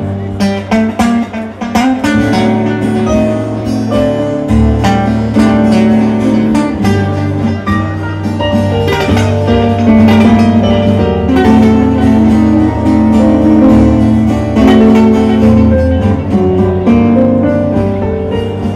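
Instrumental break of a milonga played live on nylon-string acoustic guitars, with quick plucked melody notes over steady low bass notes.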